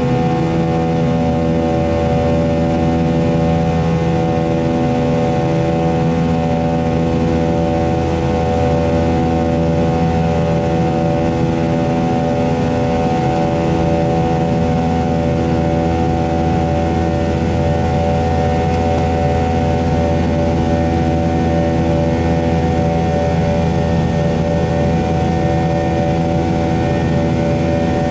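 Cabin noise of a McDonnell Douglas MD-90 in flight: the rear-mounted IAE V2500 turbofans give a loud, steady drone. Over a low rumble, a hum of several tones swells and fades every two seconds or so, the engine buzz.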